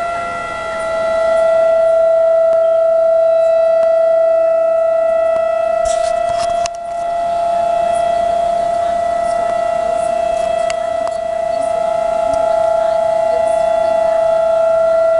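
Outdoor civil defense siren sounding a tsunami warning: one steady, loud held tone with overtones. It dips briefly about half a second in and again near the middle, where a few clicks come just before.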